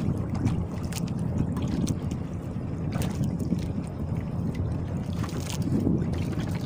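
Wind rumbling steadily on the microphone aboard a small outrigger boat on choppy water, with faint light knocks and rustles from handling fish in a plastic sack.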